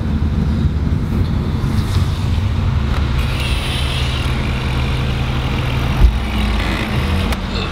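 Cabin sound of a BMW E36 M3's straight-six engine running under way, with road noise. The engine note settles to a steady pitch about three seconds in, and there is a single short thump about six seconds in.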